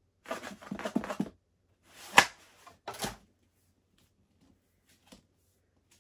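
A cardboard book mailer being handled and opened: about a second of rustling and crackling, then a single sharp snap about two seconds in and a shorter rustle just after, as a paperback is pulled out of the box.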